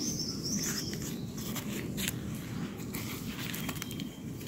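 Forest ambience: scattered small crackles and rustles over a steady low rumble, with a short high chirp lasting about a second at the start.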